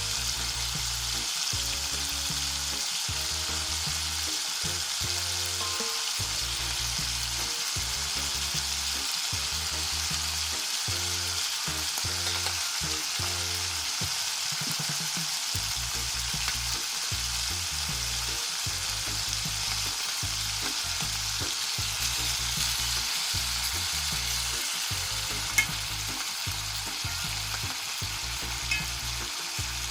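Food frying in a pan: a steady sizzle, with two sharp clicks near the end.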